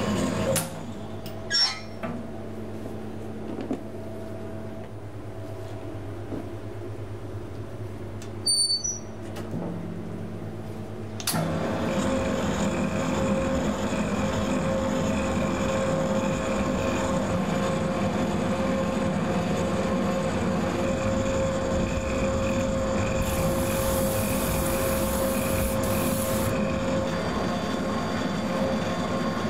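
Electric pasta extruder running steadily, a constant mechanical hum with a steady tone, as its rotating cutter slices shell pasta off the die. It comes in louder about eleven seconds in; before that the background is quieter, with a couple of short knocks.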